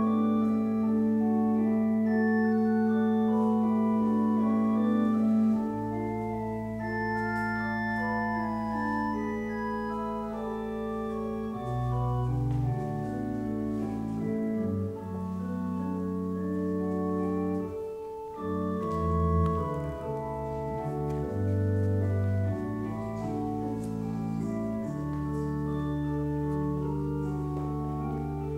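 Organ playing slow held chords over a moving bass line, with long sustained bass notes at the start and near the end.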